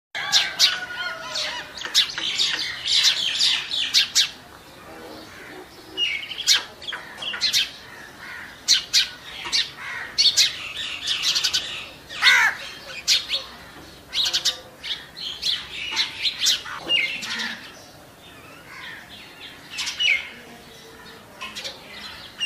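Birds chirping and calling: many quick, high chirps in irregular runs, with a few calls that slide downward in pitch.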